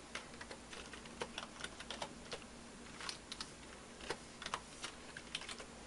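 Typing on a computer keyboard: quiet, irregular keystroke clicks, some in quick runs with short pauses between.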